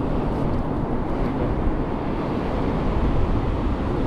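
Steady wind buffeting the microphone over the rush of rough surf breaking on the beach.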